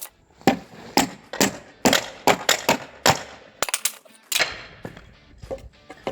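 Repeated sharp strikes of a hand tool on wooden pallet boards, knocking the wood apart at an uneven pace of about two blows a second.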